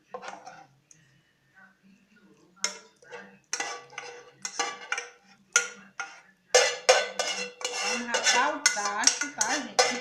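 A utensil scraping and knocking inside a saucepan as sardine sauce is scraped out into a glass baking dish: a run of short scrapes and taps that grows denser and louder from about six and a half seconds in.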